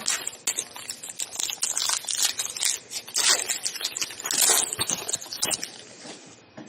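Trading card pack wrapper crinkling and tearing as it is opened and the cards are pulled out.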